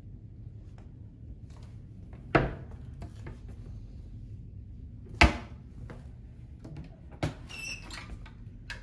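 Kitchen cupboard doors being opened and shut: three sharp knocks about two and a half seconds apart, the last followed by a brief squeak.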